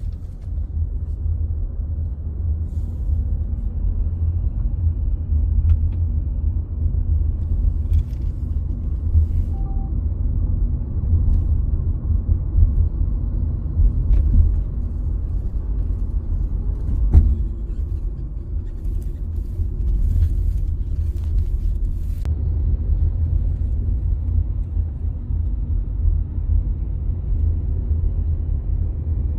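Steady low road-and-engine rumble of a Volkswagen Virtus GT being driven at low speed. A single short, faint beep sounds about nine and a half seconds in, and a sharp click comes about seventeen seconds in.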